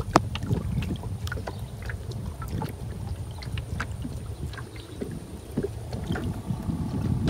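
Small wooden canoe being paddled slowly: scattered small splashes, drips and light knocks of a single paddle in the water, over a low steady rumble.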